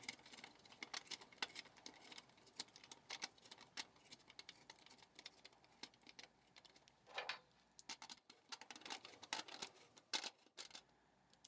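Faint, irregular metallic clicks and ticks of pliers gripping and turning the hex nut that fastens a thumb-twist lock to a steel chassis panel.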